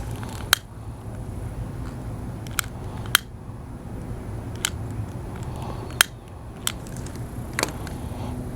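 A series of about seven sharp clicks at uneven intervals over a steady low background hum.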